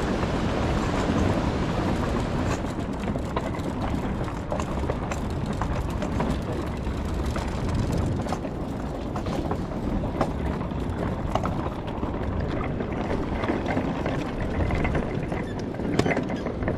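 Wind buffeting the microphone in a steady low rumble, with scattered light knocks from footsteps on the wooden pier planks.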